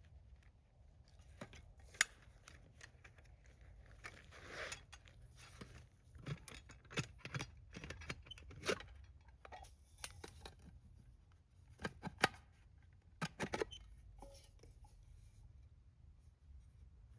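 Gear being handled and unpacked: scattered sharp clicks and knocks with brief rustling, and a longer rustle about four to five seconds in.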